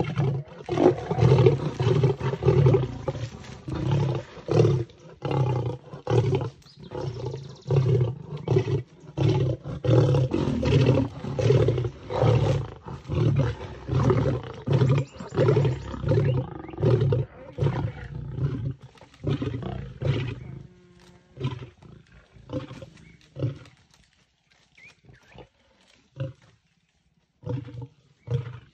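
Lions growling and snarling in a contest over an impala kill in a tree: deep growls in quick, regular succession for about twenty seconds, then fewer and further apart.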